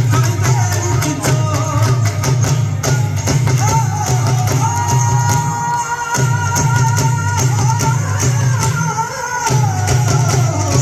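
Live Punjabi folk music for a Luddi dance: a dhol beats a steady rhythm, with a long, slowly wavering melody line held over it. The drum beat drops out briefly about six seconds in and again near nine seconds.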